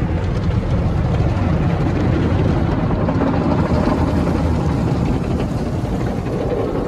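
Tunnel car wash cloth brushes scrubbing over the car's windows and body amid water spray, heard from inside the car as a steady, deep rumbling wash noise.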